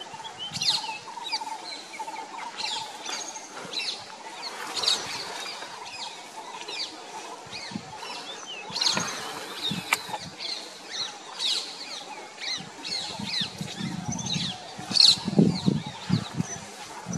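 Many birds chirping and calling in the scrub. A brief rush of noise comes about nine seconds in, and low rumbling sounds near the end, loudest about fifteen seconds in.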